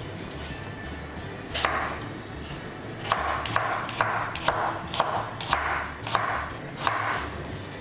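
Kitchen knife chopping apple on a wooden cutting board. One stroke comes about one and a half seconds in, then a run of quick strokes at about two a second from three seconds in until near the end.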